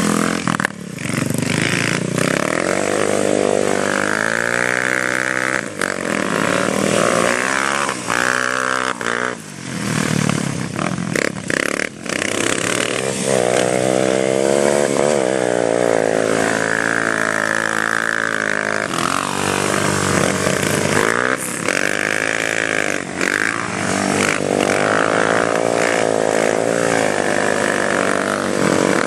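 ATV (quad bike) engine revving hard and falling back again and again while being drifted, its pitch sweeping up and down, with brief drops as the throttle is lifted.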